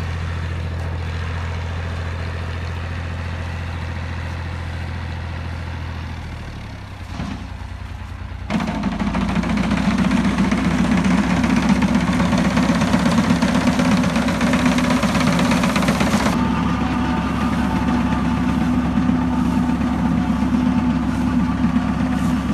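Tractor engine running steadily while its front-mounted reaper cuts standing wheat. About eight seconds in, the sound becomes louder and fuller, with a harsher, noisier edge, and it stays that way to the end.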